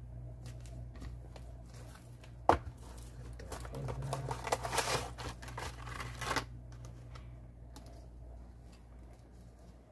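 Headset packaging being opened: a sharp click about two and a half seconds in, then about three seconds of cardboard and plastic crinkling and tearing as the box is pulled apart and its plastic tray slid out.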